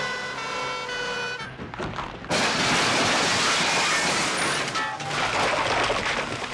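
An ambulance's two-tone siren sounds in alternating high and low notes, then stops. About two seconds in comes a loud crash as the ambulance smashes through the entrance doors, followed by a few seconds of rough clattering debris.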